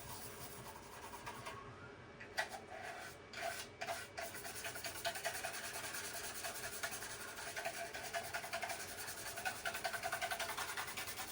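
Toothbrush scrubbing a graphics card, a fast back-and-forth rubbing, with a few light knocks about two to four seconds in.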